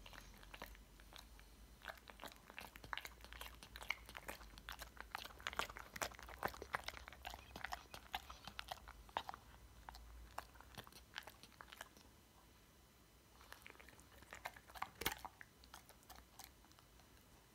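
Sleeping Labrador retriever chewing and smacking its mouth in its sleep: a rapid run of small clicking mouth sounds, a short lull about twelve seconds in, then another burst near the end.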